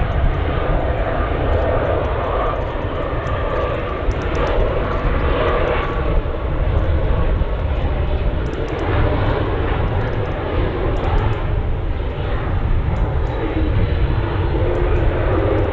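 Airbus A320neo jet engines on approach, touchdown and landing rollout: a steady jet rumble with faint humming tones running through it.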